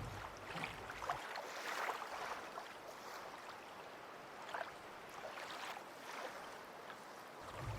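Water lapping and sloshing, with scattered small splashes.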